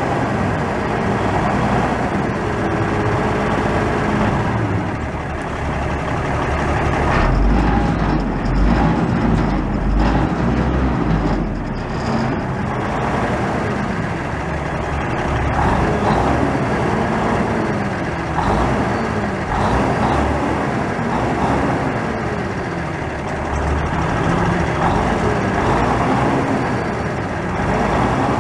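Dump truck's Cummins N14 14-litre straight-six turbo diesel running, its pitch rising and falling repeatedly as it is revved up and down. It runs heavier for a few seconds in the middle.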